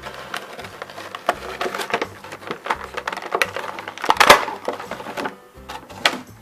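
Irregular clicks, taps and crackles of the toy set and its packaging being handled, loudest about four seconds in, over background music.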